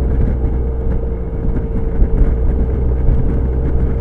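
Suzuki Burgman scooter under way at road speed: steady low wind rumble on the microphone over the engine's even hum, with no change in pace.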